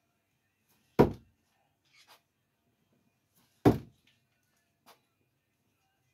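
Two thrown screwdrivers striking the wooden target, one sharp thunk about a second in and a second one nearly three seconds later, each dying away quickly.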